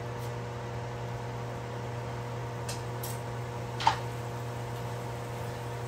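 Steady hum of a kitchen fan with a faint hiss, and a single sharp click about four seconds in.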